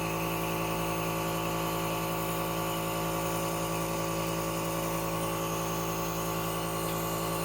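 Plug-in compressor nebulizer running, its motor and air pump giving a steady, even hum that does not change in pitch while it turns the medicine in its cup into mist.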